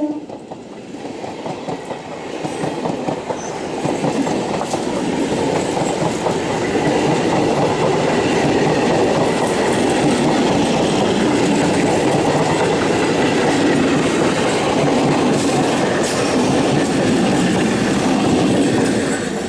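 A 12-coach electric multiple unit (EMU) local train passing close by at speed: a steady rumble with the wheels clattering over rail joints. It builds over the first few seconds and then holds loud.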